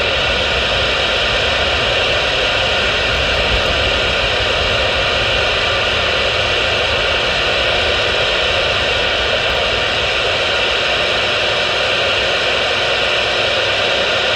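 CB radio on channel 6 in AM mode, its speaker giving a steady loud hiss of static with no voice coming through.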